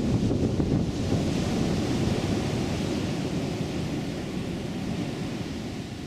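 Wind buffeting the microphone in a low, uneven rumble, over a steady rush of ocean surf; the wind eases slightly toward the end.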